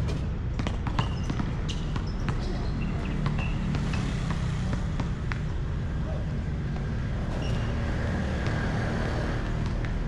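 A basketball bouncing on an outdoor hard court some way off: scattered sharp thuds over a steady low rumble.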